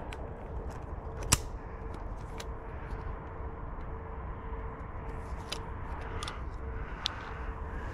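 A few sharp metallic clicks from a break-action shotgun being handled and reloaded after a shot, the loudest about a second in, over a steady low rumble.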